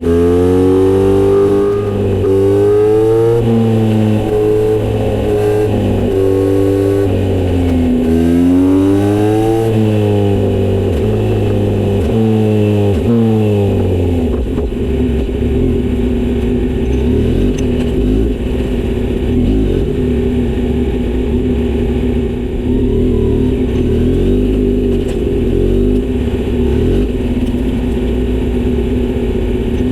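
Kawasaki Z900RS inline-four with a Misty Kintaro short-pipe exhaust and L silencer, revved up and down repeatedly for the first half, then running steadily from about halfway in.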